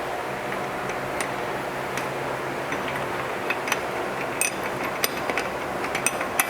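Irregular light metallic clicks and ticks from a wrench turning the top nut of a shock absorber onto its new strut mount, coming more often in the second half, over a steady fan hum.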